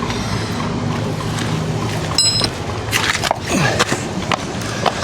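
Hand wrenches clicking and knocking against the steel sway bar link nut and stud, with a short metallic ring about two seconds in, over a steady low hum.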